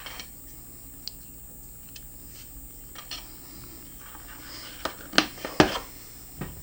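Scattered light taps and clicks of hands handling things at a desk, then a few sharper knocks and clatters about five to six seconds in.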